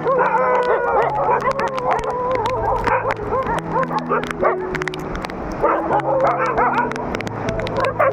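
Dogs whimpering and yelping in high, wavering cries over background music of slow, held chords.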